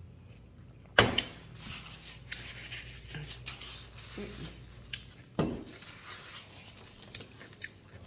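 A glass pickle jar set down on the table with a sharp knock about a second in, then a second knock on the table some four seconds later, with a few faint clicks between.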